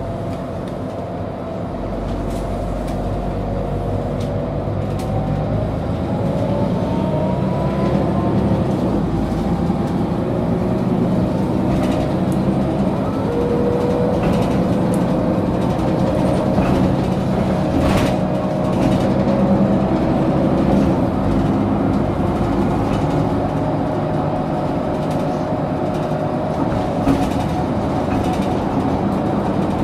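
Ride inside a Mercedes-Benz O530G Citaro articulated bus as it pulls away and accelerates. The engine and drivetrain hum rises in pitch, drops back and rises again, with rattles and an occasional sharp click from the cabin.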